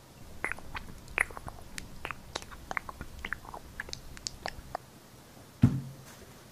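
Thick blue paint poured from a pot onto a china plate, giving a run of small quick clicks and pops as it flows, followed by a single low thump near the end.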